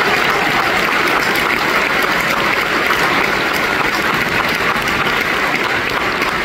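Theatre audience applauding, dense steady clapping from a full house.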